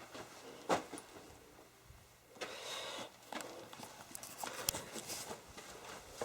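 Footsteps scrambling over rock: boots knocking and scuffing on stone and grit, in uneven clicks and scrapes. There is a sharp knock under a second in, and a longer scrape a little before the halfway point.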